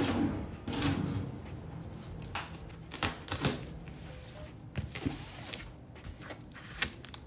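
A large cardboard box being handled and worked open, with scattered knocks, taps and scrapes of cardboard and packing tape.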